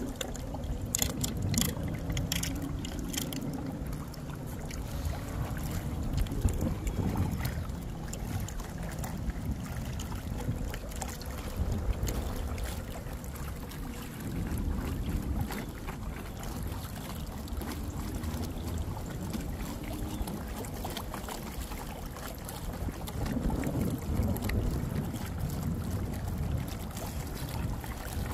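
A small inflatable boat under way, pushed by a 12V electric outboard: a steady low rumble of wind on the microphone and water washing against the hull. There are a few sharp ticks in the first few seconds.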